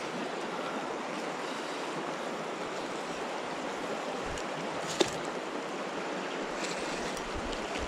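Fast, shallow river current rushing steadily, with a single sharp click about five seconds in.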